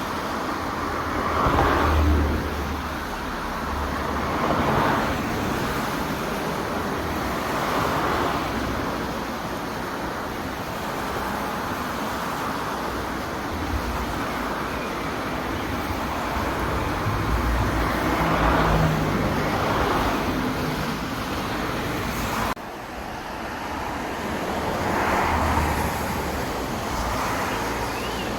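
Road traffic with several vehicles passing, each swelling up and fading over a few seconds. The sound drops abruptly about 22 seconds in, then builds again as another vehicle passes.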